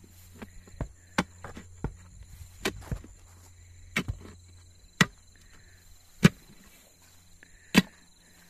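Iron digging bar jabbed repeatedly into a post hole, each stroke a sharp thud into soft soil, about a dozen strikes that come quickly at first and then slow to about one every second and a half. Insects buzz steadily underneath.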